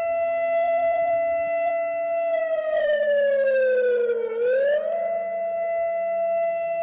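An alarm siren holding one steady tone. About a third of the way in it slides slowly down in pitch, then sweeps quickly back up and holds steady again.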